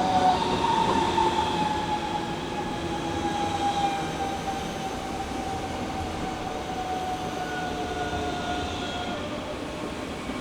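DB Class 426 electric multiple unit running, with a whine that slowly falls in pitch and fades out about nine seconds in.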